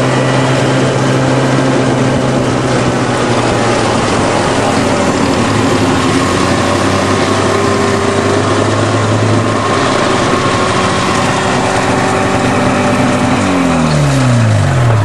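Snowmobile engine running at a steady pitch while riding, then its note falls near the end as the machine slows down.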